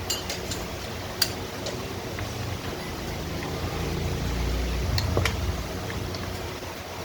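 Steady low mechanical hum, like a vehicle running, with a few sharp clicks and clinks; the low rumble swells for about a second and a half a little past the middle.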